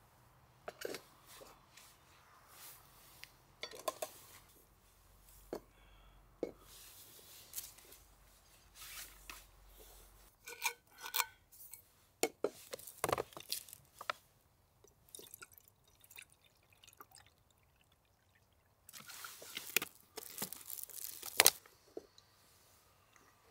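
Small handling sounds of camp cookware: scattered light clinks, taps and rustles, with a louder stretch of rushing noise near the end that stops on a sharp click.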